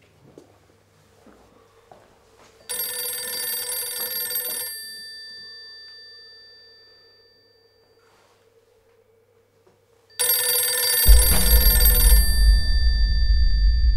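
Telephone bell ringing twice, each ring lasting about two seconds and dying away slowly after it stops. A loud, deep low rumble comes in about eleven seconds in, partway through the second ring.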